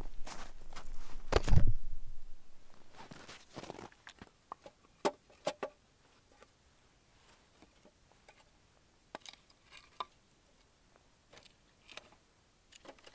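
Rustling and thumps of walking through snow with the camera for the first two seconds, then scattered light wooden knocks as split firewood pieces are set one by one into a small portable grill.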